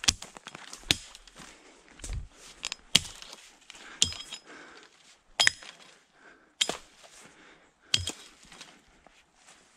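Dry pine branches being struck and snapped off with a hand tool: sharp cracks and snaps about once a second, a couple with a brief metallic ring.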